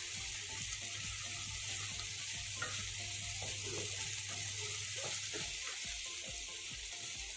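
Diced par-boiled potatoes and beans sizzling in hot mustard oil in a kadai, with a wooden spatula stirring and scraping them around the pan. A low steady hum runs underneath and cuts out about five seconds in.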